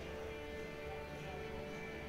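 Music with sustained notes.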